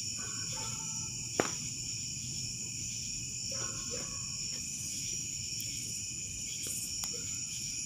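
Steady night chorus of crickets, trilling without break at several high pitches at once. A single sharp click comes about a second and a half in, and a fainter one near the end.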